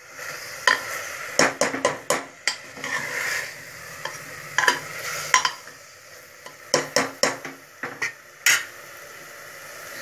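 Metal spatula scraping and knocking against the inside of an aluminium pressure cooker as chapatis are turned in chutney. It makes a run of irregular clinks, bunched in two flurries, over a steady sizzle.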